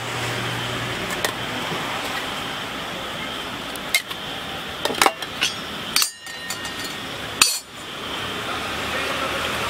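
Small metal tins, lids and brass pots clinking and tapping against each other and the counter as a paan is put together: a few sharp clinks spaced a second or so apart, over a steady background noise.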